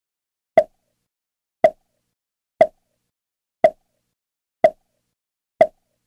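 A pop sound effect, repeated six times about a second apart: short, sharp pops with silence between them.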